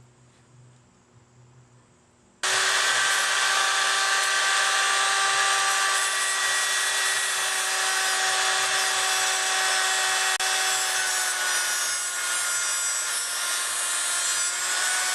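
Handheld power tool running steadily: a motor whine under a loud, grinding hiss that starts suddenly about two seconds in, its pitch sagging a little as it works. It is de-rusting the bike's old steel rear rack.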